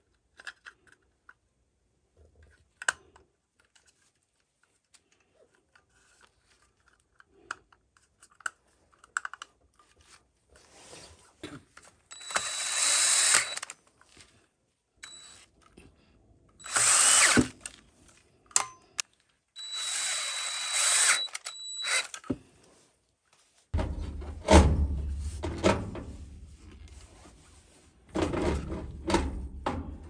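Power drill running in three short bursts of a second or two each. These are followed by a run of loud knocks and rumbling handling noise near the end.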